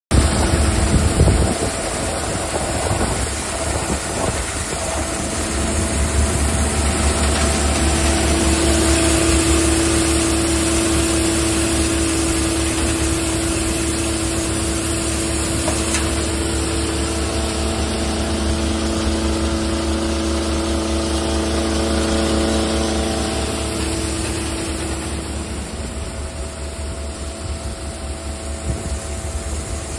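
Multi-crop thresher running steadily as crop is fed in: a loud, continuous mechanical drone with a low hum and a rushing whir from the drum and fan. It eases off a little near the end.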